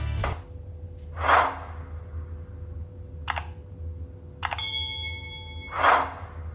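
A whoosh, a sharp click, then a click with a bell-like ding that rings for about a second, and a second whoosh, over a steady low hum.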